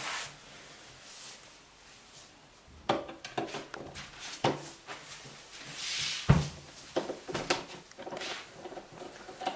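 Clicks and knocks of hands and tools working on an interior door handle, with a short rustle and one solid thump about six seconds in.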